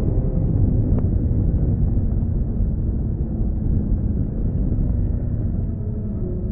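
1979 Honda CBX 1000's air-cooled inline-six engine running steadily while the bike is ridden, recorded onboard under a heavy low rumble of wind.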